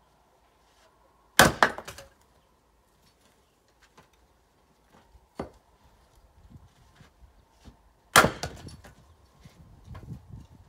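Axe splitting firewood on a chopping block: two loud chopping strikes about seven seconds apart, each followed by a short clatter of smaller wooden knocks. There is a lighter knock between them.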